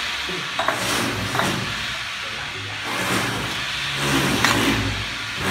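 Steel trowel scraping and packing wet cement mortar against brickwork, a few short scrapes over a steady low background noise.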